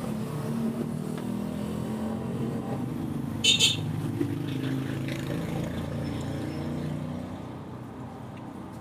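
A motor vehicle's engine running nearby, a low wavering drone that fades away near the end. About three and a half seconds in there is a short, high double chirp.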